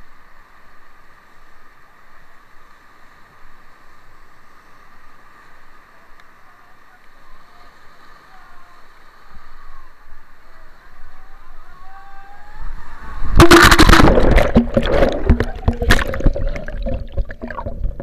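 Whitewater rapid rushing steadily around an inflatable raft. About thirteen seconds in, a wave breaks over the raft and water washes over the camera, giving loud, choppy splashing and churning on the microphone.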